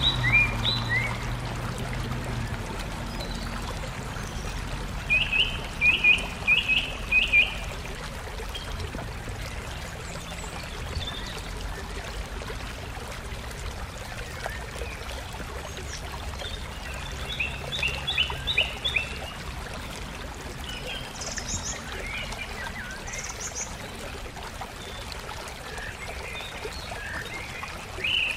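Small birds chirping in quick groups of short rising notes, twice at length, over a steady hiss of outdoor background noise. A low hum dies away in the first few seconds.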